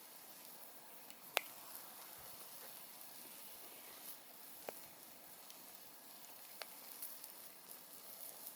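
Wood campfire burning with a faint steady hiss and a few sharp crackles and pops. The loudest pop comes about a second and a half in.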